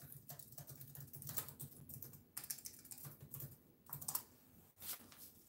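Typing on a computer keyboard: quiet, irregular key clicks, several a second, thinning out and stopping near the end.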